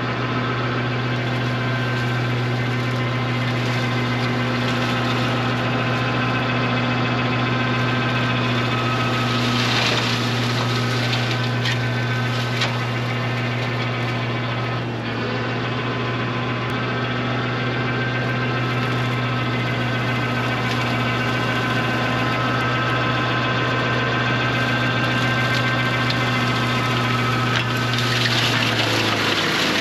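Compact TYM diesel tractor running steadily under load, driving a rear PTO flail mower as it chops dry grass and brush. There are two brief louder rushes, about ten seconds in and near the end, and the engine pulls down slightly near the end.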